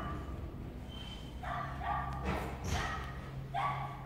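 A dog barking a few times, short pitched calls about a second apart, over a low steady hum.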